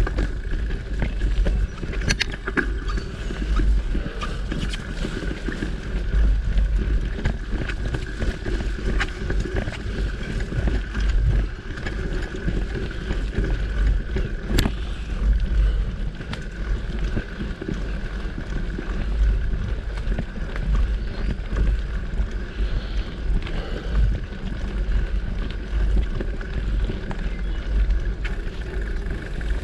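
Mountain bike rolling along a dirt singletrack: wind rumbling on the camera's microphone over continuous tyre and riding noise, with scattered small clicks and rattles from the bike.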